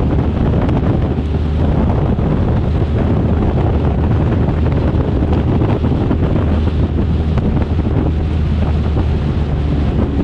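Heavy wind buffeting on the microphone of a moving motorcycle, with a motorcycle engine droning underneath at a steady cruising speed.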